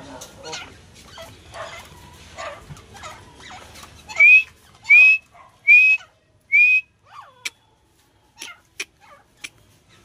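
Grey francolin calling: a run of softer short notes, then four loud, rising whistled notes in quick succession, a little under a second apart.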